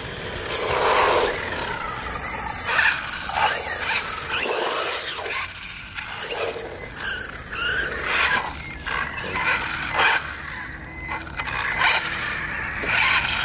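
Two 1/16-scale electric RC cars, one brushless and one brushed, driving on wet asphalt: the motors whine up and down in pitch with the throttle, over tyre noise on the wet surface.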